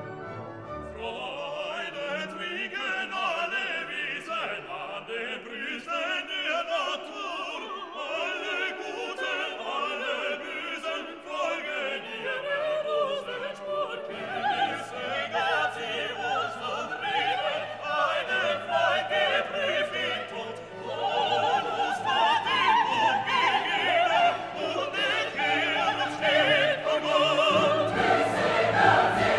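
Background music: operatic singing over an orchestra.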